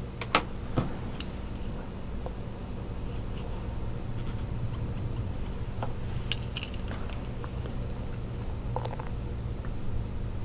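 Marker tip scratching in short strokes and light taps over a small diecast car's body, with a faint steady hum underneath.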